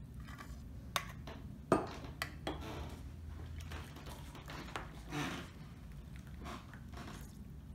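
Clinks and taps of a stainless-steel saucepan and small metal tea strainer against ceramic mugs as chai is strained into cups: a few sharp knocks in the first few seconds, the loudest about a second and a half in, and a softer one later, over a low steady hum.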